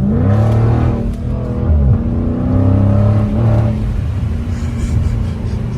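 2020 Dodge Scat Pack's 392 V8 running loud through an exhaust with the mid mufflers deleted, the pitch rising at the start and dipping briefly about two seconds in, then holding steady.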